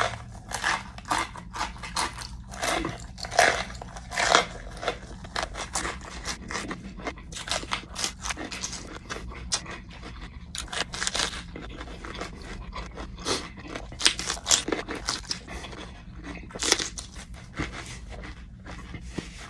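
Close-up biting and chewing of a raw green pepper stuffed with hot chillies: irregular, crisp wet crunches as the flesh is bitten and chewed, the first bite the loudest.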